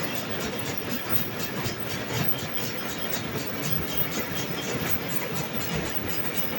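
Paper laminating machine running: a steady mechanical noise with a fast, regular ticking throughout.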